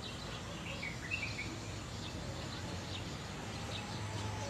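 Outdoor ambience: a few short bird chirps about a second in, with scattered faint high ticks over a steady low background rumble.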